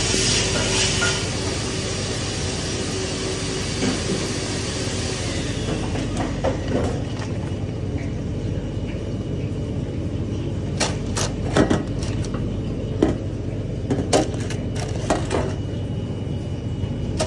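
Steady rumble of a commercial kitchen's extraction and ventilation running, with a short hiss at the start. In the second half comes a scatter of sharp clicks and knocks from handling in a stainless-steel gastronorm tray.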